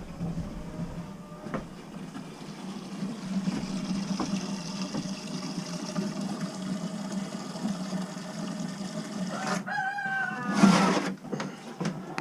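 A rooster crows once near the end, over a steady low hum.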